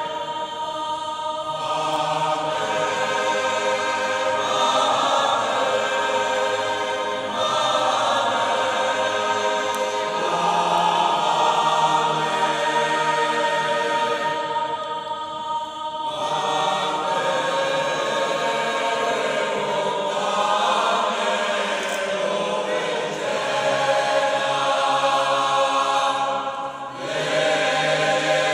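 Mixed choir of men and women singing a cappella in a large church, long sustained chords in phrases, with short breaks for breath between phrases, three times.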